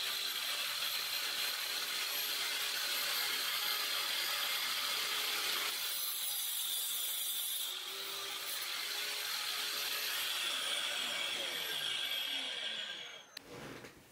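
GRAND angle grinder fitted with a toothed wood-cutting saw blade and used as a pivoting chop saw, running at speed and cutting through a small wooden block. About ten seconds in it is switched off and its high whine falls away as the blade spins down.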